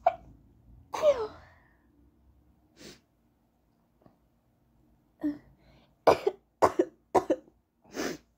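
A woman's high-pitched stifled sneezes, short and sharp. A few come singly, then a quick run of four near the end.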